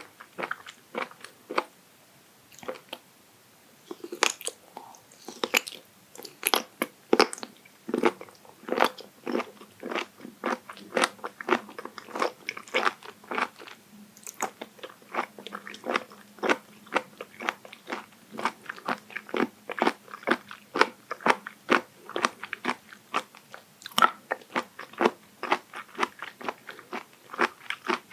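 Close-miked chewing of raw abalone sashimi: rapid, crisp crunches as the firm flesh is bitten and chewed, sparse at first and then steady.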